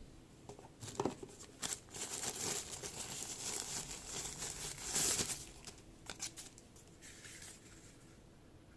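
Plastic packaging crinkling and rustling as it is handled, with a few sharp clicks, dying away after about six seconds.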